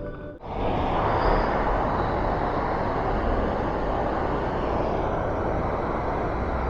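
Steady rushing roar of the Braulio waterfall, swollen by a night of torrential rain, coming in about half a second in.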